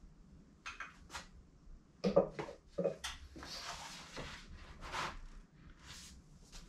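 Ink pen scratching a run of short tally marks on paper, one stroke after another at an uneven pace, with a couple of soft knocks about two seconds in.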